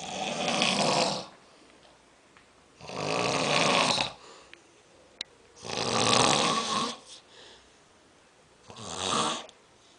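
Snoring: four loud, rasping breaths about three seconds apart, the last one shorter.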